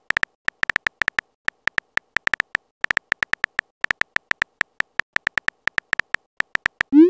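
Phone keyboard typing sound effect: a quick, uneven run of short tapping clicks, about eight a second, as a text message is typed out letter by letter. Right at the end a short rising whoosh begins as the message is sent.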